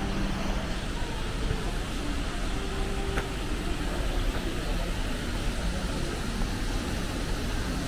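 Steady background noise of a shopping mall's indoor hall, with faint distant voices and a single sharp click about three seconds in.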